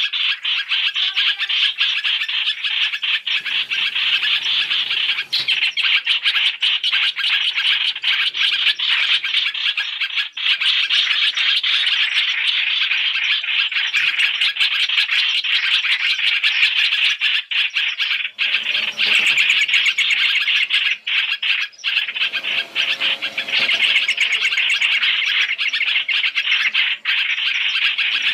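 Black-collared starlings (hoành hoạch) calling in a dense, unbroken chatter of harsh chirps and squawks. This is a lure recording of their calls, used to draw the birds in for trapping.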